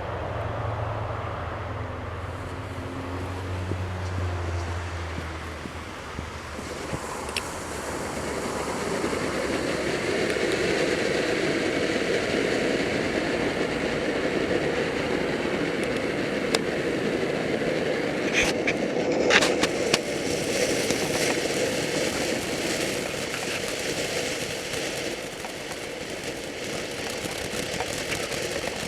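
Soda Pop firework fountains spraying with a steady hiss that builds about seven seconds in and keeps going, with a few sharp crackles near the two-thirds mark. A low hum underlies the first few seconds.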